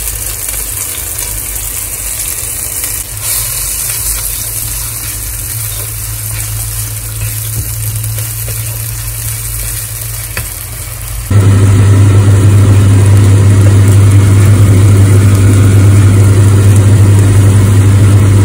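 Ground shallot, garlic and chilli paste sizzling in hot oil in a wok as it is stirred. About eleven seconds in, a loud steady low hum sets in suddenly and carries on under the sizzle.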